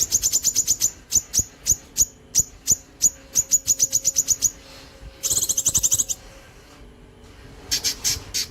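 Cucak kinoi songbird singing a long, rapid 'nembak' run of sharp high notes, about five a second, for some four seconds. A short buzzy trill follows, and after a pause another trill comes near the end.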